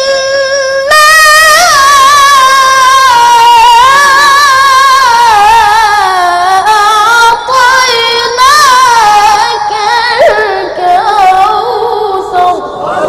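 A qari's solo voice reciting the Quran in long, high, chanted phrases. Each held note wavers up and down in ornamented melodic turns, with short breaks for breath about a second in and again near the middle.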